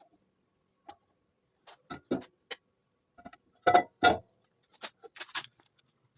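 Irregular clicks and knocks of hard objects being handled, a dozen or so separate strikes, the two loudest close together in the middle.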